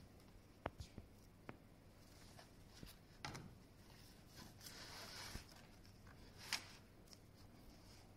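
Soft rustling of a polo shirt's fabric being pulled and dragged over a plastic embroidery hooping board, with a few light clicks and knocks, the sharpest about six and a half seconds in.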